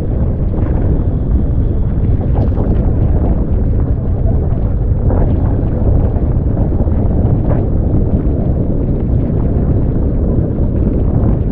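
Strong wind rumbling on the camera microphone, with water rushing past a small sailing boat moving fast in high wind and a few brief splashes.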